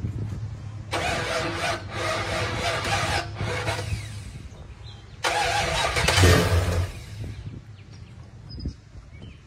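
Ford 302 V8 in a 1987 Ford Ranger being cold-started: the starter cranks it in a couple of spells over about three seconds. Then the engine fires with a loud burst about six seconds in before falling back.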